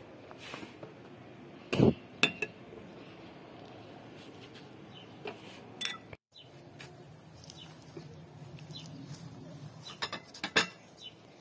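Dishes and utensils clinking while food is served: a glass salad bowl and spoon knocking against a ceramic plate, then a wooden spoon in a clay pot. Sharp single clinks come about two seconds in and near six seconds, and a few more close together near the end.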